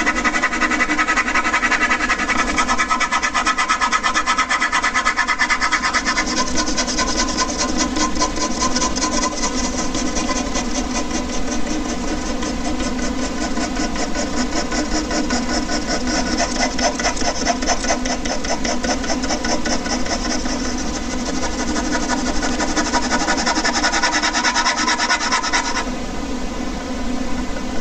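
Ballpoint pen rubbing back and forth rapidly on paper in quick hatching strokes, over the steady drone of an air conditioner.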